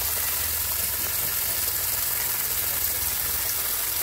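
Water hissing as it sprays in a thin jet from a crack in a PVC water pipe, with water also pouring from the open tap, over a steady low hum.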